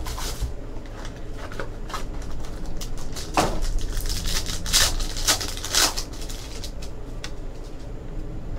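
Trading card packaging being opened and the cards handled: several short bursts of wrapper crinkling and card rustling, with a few small clicks.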